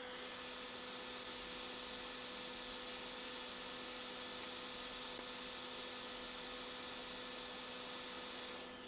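Quick 861DW hot air rework station blowing on a small surface-mount fuse on a logic board: a steady airy hiss with a steady tone under it, the airflow stopping near the end.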